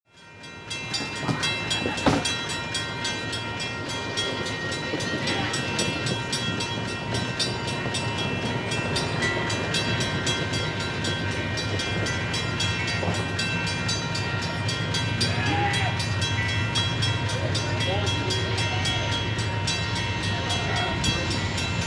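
Low, steady rumble of an approaching Norfolk Southern freight train's diesel locomotives, slowly building while the train is still out of sight.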